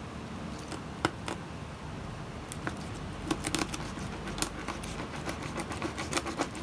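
Knife working on a raw chicken head on a cutting surface: irregular light clicks and taps, a few at first and more frequent in the second half.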